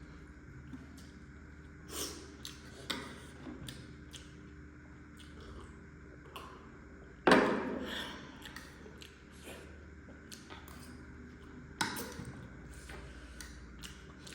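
Close-up eating sounds of spicy noodles being chewed: soft mouth clicks, with a few louder sudden noises. The loudest comes about seven seconds in and fades over a second.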